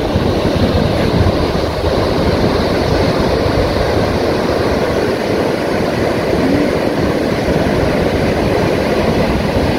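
Steady roar of ocean surf breaking on the beach, mixed with wind rumbling on the microphone.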